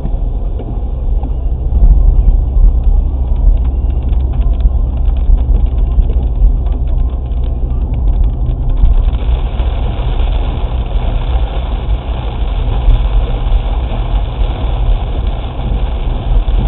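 Interior noise of a Seat Leon 1.9 TDI diesel on a wet road: a steady low engine and tyre rumble. Big raindrops tick on the windscreen from a few seconds in, and about halfway through they give way to an even hiss of heavier rain.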